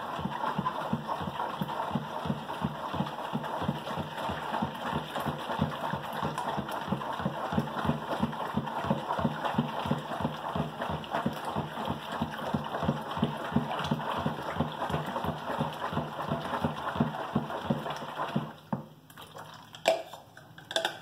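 A spatula beating a homemade liquid laundry soap mixture in a plastic bowl, a quick rhythmic sloshing and scraping at about four strokes a second. It stops a couple of seconds before the end and gives way to a few separate knocks and clinks.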